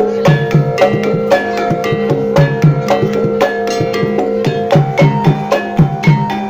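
Jaran kepang gamelan playing: quick, even strikes on tuned gong-chimes and drums over a steady ringing tone.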